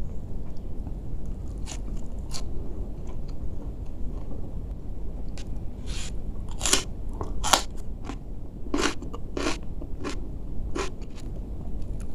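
Crisp crunching bites and chewing of a raw cucumber piece dipped in sambal terasi. There are about a dozen sharp crunches, most of them in the second half, over a steady low background hum.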